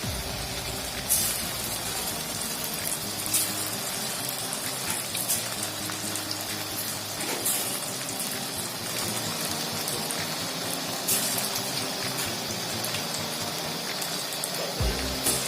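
Rice-flour pakoda pieces deep-frying in hot oil in a kadai: a steady sizzle with an occasional sharp crackle.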